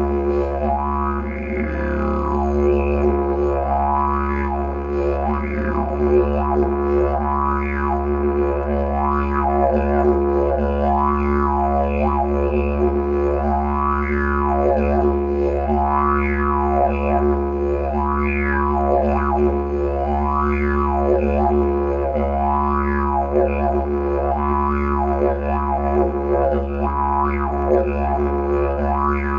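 Bamboo didgeridoo playing one unbroken low drone, its tone swept up and down in repeated wah-like sweeps about every two seconds.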